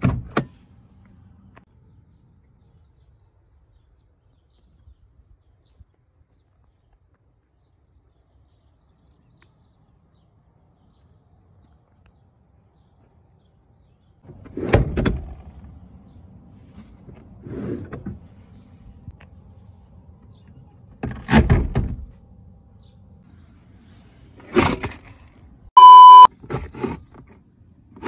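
A click as the car's bonnet release lever under the dashboard is pulled, then a long quiet stretch. Later, a series of separate clunks and knocks from the front seat being adjusted, one short loud electronic beep about two seconds from the end, and a plastic under-seat storage tray sliding out right at the end.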